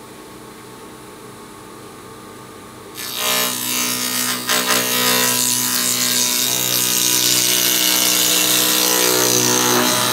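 Small hobby-type spindle moulder, run open with no guard or fence, humming steadily at speed. About three seconds in, its cutter bites into a long softwood trim board fed past by hand, and a loud cutting noise takes over.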